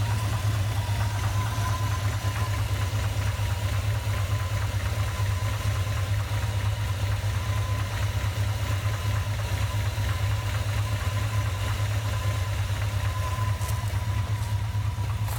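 1991 Jeep Grand Wagoneer's AMC 360 V8 idling steadily with a light rhythmic knock that seems to run at half engine speed, heard mostly at idle. The cause is undiagnosed, and a recently replaced water pump has not cured it. A faint steady whine sits above the engine note.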